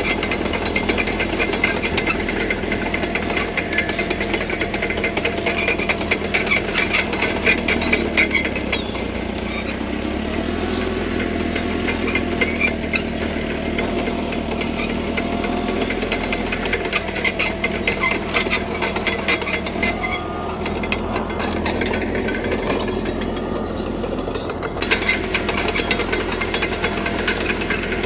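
CAT D3K crawler bulldozer at work: its diesel engine runs steadily under a dense clanking rattle of the steel tracks and blade. The clatter eases for a while in the middle and picks up again near the end.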